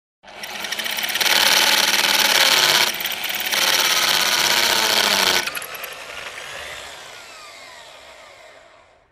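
Electric drill drilling into a brick wall: the motor runs up, drills loudly for about four seconds with a short dip near the middle, then winds down with a falling pitch and fades out.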